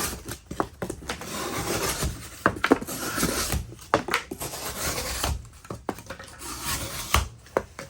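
Civivi Altus folding knife slicing through double-layer corrugated cardboard: rough scraping, tearing strokes with sharp snaps and knocks between them, the blade going through readily.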